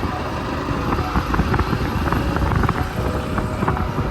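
Motorcycle engine running close by: a steady low rumble with a scatter of light clicks.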